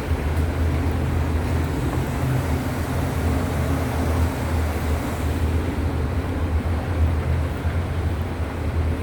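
Large industrial fan running: a steady low hum with an even rush of moving air.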